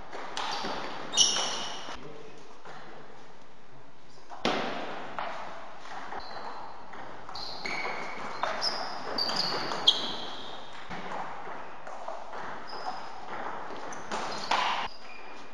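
Table-tennis ball clicking off bats and the table in short doubles rallies, sharp taps with a brief high ring, echoing in a large hall.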